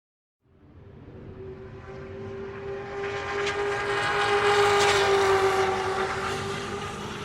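NASCAR stock car's V8 engine running at high, steady revs. It fades in, builds to its loudest about five seconds in, then eases off a little with a slight drop in pitch, as a car approaching and passing would.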